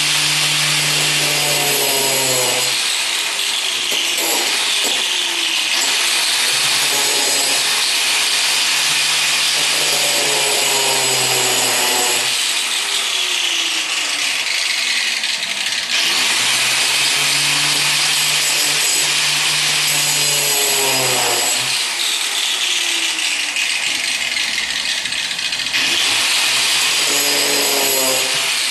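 Electric grinder cutting the head off a steel body mount bolt that spins in its rubber-mounted socket and cannot be unscrewed. It runs in repeated short bursts, its whine falling in pitch each time it is let off, about every seven to ten seconds.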